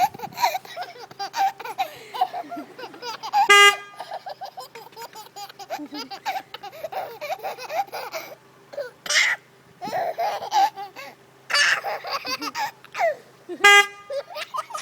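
A car horn honks twice, briefly each time, about ten seconds apart, and a baby laughs in bursts around the honks.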